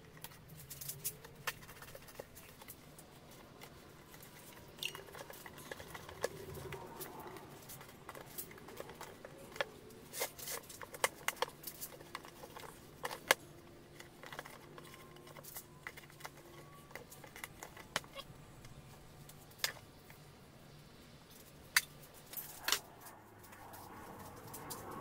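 Knife cutting through the rubber sidewall of a car tyre: scattered sharp clicks and snaps at irregular intervals, over a faint low hum.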